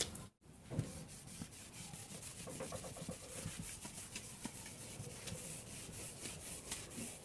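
Faint scratching of handwriting: a pen or marker drawn across a writing surface in short, irregular strokes.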